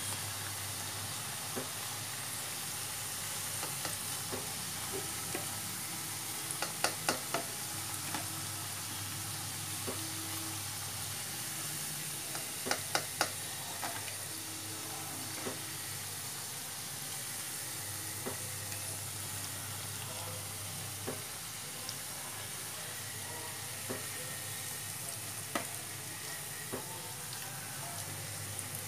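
Potato and onion pakodas sizzling with a steady hiss as they deep-fry in hot oil. A slotted spoon knocks against the pan in two short clusters of sharp clicks, about a quarter and about halfway through, as the fritters are turned and lifted out.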